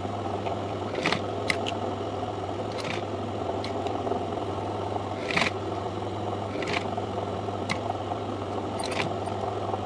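Sewing machine running steadily as it stitches pleated fabric, with a few light clicks scattered through.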